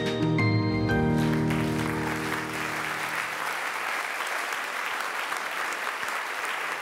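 Closing music with held notes that fades out over the first few seconds, overlapped by an audience applauding steadily.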